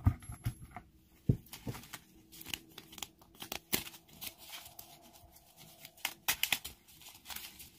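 A deck of tarot cards being shuffled and handled by hand: a run of quick, irregular card slaps and rustles.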